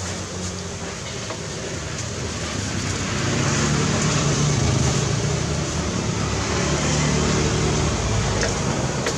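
Street traffic noise, with a motor vehicle's engine growing louder about three seconds in and staying loud.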